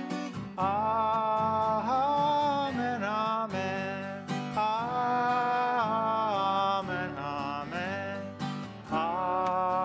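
Singing with strummed acoustic guitar: long held, gently bending notes, continuing the song's closing 'Amen' refrain.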